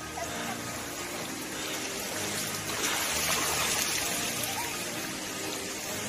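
Shallow mountain stream running over rocks, with splashing as children wade and paddle in it; the water noise swells in the middle.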